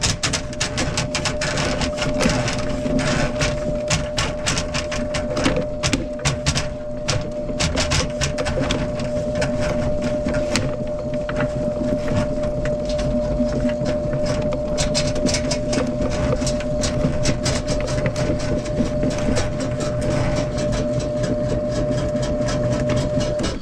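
Power drain cleaning machine running steadily, its motor spinning a cable down a blocked kitchen sink drain, with the cable clicking and rattling in the pipe. The motor cuts off near the end.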